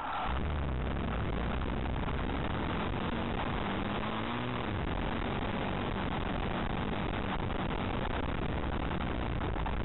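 Off-road motorcycle running along a cross-country race trail, heard through a low-quality on-board camera microphone as a steady, noisy drone with a deep rumble. The engine pitch rises and falls briefly about four seconds in.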